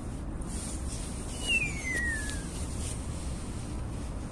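A starling gives one clear, falling whistle about a second in, sliding down in pitch over about a second, against a steady low rumble.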